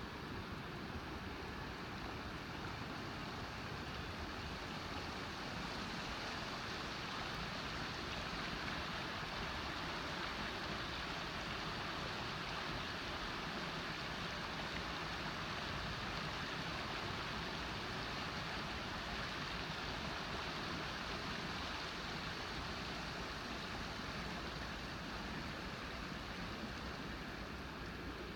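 Creek water rushing over its stony bed, a steady even rush that swells slightly midway.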